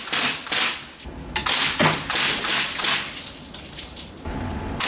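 CO2 airsoft Uzi firing rapid shots in two clusters, the second starting about a second and a half in, with water balloons bursting and water splashing. The shooting stops as the CO2 cartridge runs out of gas.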